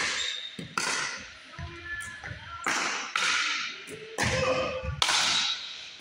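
Pickleball rally: a paddle hitting the plastic ball again and again, about six sharp hits spread through the stretch, each echoing in the gymnasium.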